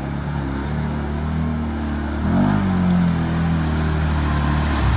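Can-Am ATV engine running under load as it wades through deep muddy water, revving up about two seconds in with a rising pitch, then holding the higher note.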